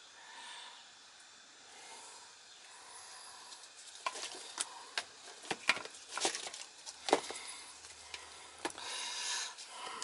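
Refrigerant hoses and brass hose fittings being handled and shifted by a gloved hand, with scattered clicks and rustles starting about four seconds in, after a faint quiet stretch.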